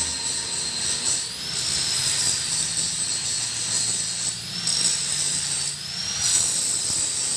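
Homemade metal lathe running, with a steady motor noise and a high whine that rises and falls in pitch several times.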